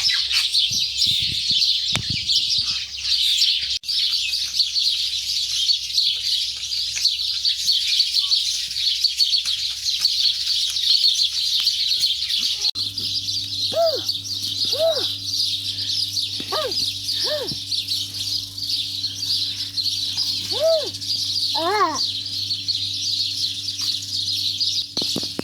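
Chickens give six short calls that rise and fall in pitch in the second half, over a low steady hum. A steady high-pitched hiss runs underneath throughout.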